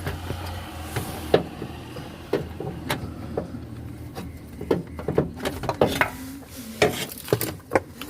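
A car starter motor being maneuvered one-handed into its mounting hole, knocking and scraping against the surrounding metal in a string of irregular clunks.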